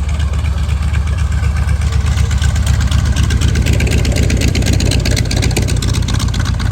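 A piston engine running steadily and loudly close by, with a deep low hum and a fast, even pulse.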